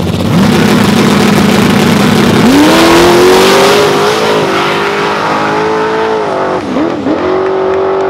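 Drag-race cars at the starting line: the engine revs up and holds a steady pitch, then launches at full throttle about two and a half seconds in with the pitch climbing. Near the end the pitch dips briefly and comes back, as at a gear shift.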